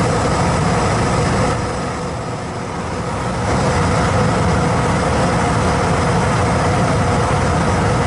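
Pulse gas furnace running steadily: a low mechanical hum with air from the blower rushing through the open return, briefly a little quieter about two seconds in.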